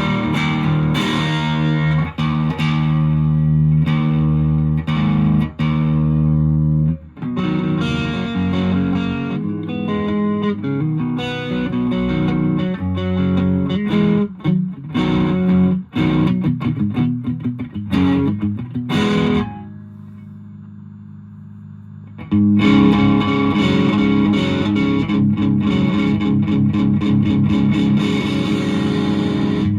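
Electric guitar (Fender Jazzmaster) played through a Boss DS-1 distortion pedal into an ELK FSB-45 amp, heard through a phone's microphone. It starts with a long ringing distorted chord, moves into changing notes and chords, and stops for about three seconds about twenty seconds in, leaving only the amp's faint hum. Then strummed distorted chords resume.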